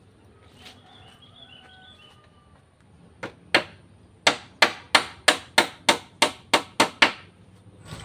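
Hammer blows nailing a wooden plank to a bamboo post: two blows, then a steady run of about ten more at roughly three a second.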